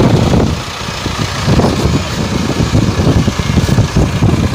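Massey Ferguson 385 tractor's diesel engine running as the tractor works its rear scraper blade through wet mud and water.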